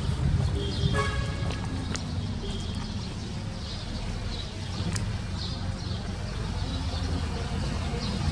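Town street ambience: a steady low rumble of distant traffic, with scattered faint bird chirps, a brief horn-like toot about a second in, and a couple of faint clicks.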